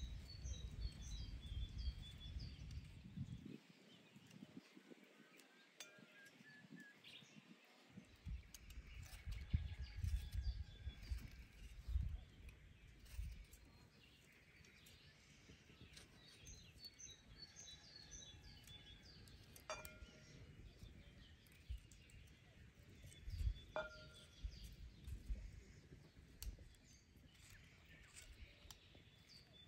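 Birds chirping now and then over a quiet outdoor background with an uneven low rumble, and a few soft clicks of a knife cutting tomatoes held in the hand.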